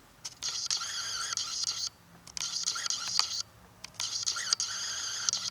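Scraping, scratching sound in three strokes of about one to one and a half seconds each, from a magnetic-tip screwdriver being worked in the front differential to pick up metal shavings.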